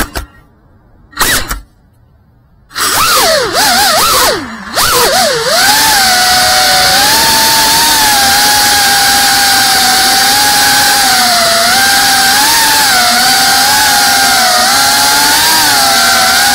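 GEPRC Cinelog35 FPV drone's brushless motors and propellers: two short blips of motor noise near the start, then the motors spin up about three seconds in with the pitch swooping up and down as the drone lifts off. From about six seconds it settles into a steady high whine that wavers a little as it holds position.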